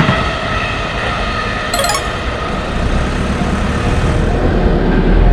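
Electric commuter train running past a railroad crossing: a steady rush of wheel and rail noise, with a heavier low rumble building from about three seconds in. A brief high clicking comes just before two seconds.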